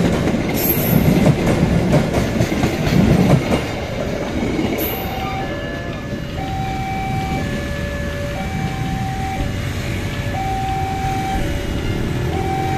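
The last carriages of a KAI passenger train rumble and clatter past. About five seconds in, the level crossing's electronic warning alarm comes through clearly, alternating between a higher and a lower tone about once a second.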